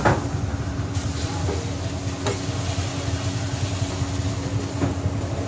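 Steady roar of a gas wok burner as noodles are stir-fried, with a metal spatula knocking against the wok a few times.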